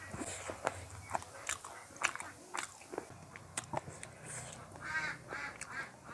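Close-miked chewing of chicken curry and rice, with wet mouth smacks and clicks coming irregularly several times a second.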